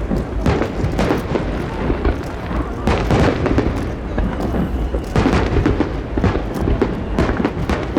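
Aerial fireworks bursting in rapid succession: dense booms and crackling over a continuous low rumble, with heavier volleys about three and five seconds in.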